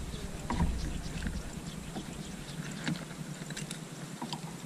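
Low wind rumble on the microphone for the first few seconds, with scattered faint clicks and taps from handling the catch and tackle in a small boat.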